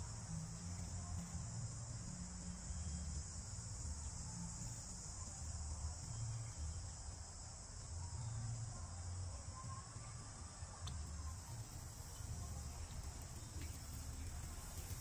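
Steady high-pitched insect chorus, like crickets trilling, with an uneven low rumble underneath.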